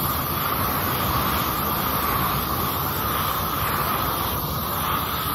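Propane weed burner torch running steadily with a constant rushing sound, its flame played over a wooden board to scorch it.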